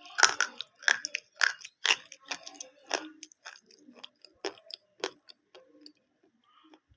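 Pieces of edible slate pencil crunching between the teeth as they are bitten and chewed: a run of sharp crunches, loudest over the first three seconds, then smaller chewing crunches thinning out.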